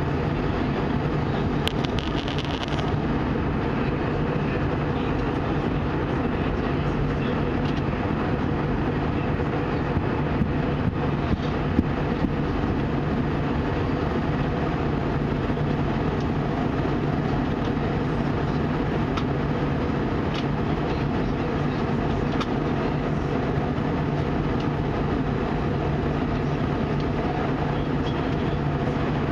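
Steady cabin noise of an Airbus A320 in flight: engine and airflow rush with a low, even hum underneath, plus a few faint clicks.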